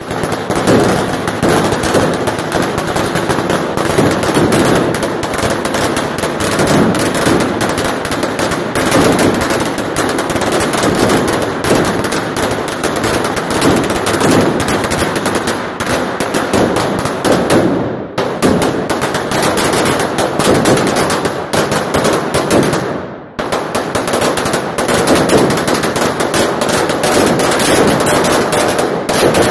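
A long string of firecrackers going off in a rapid, unbroken rattle of bangs, with two short lulls about 18 and 23 seconds in.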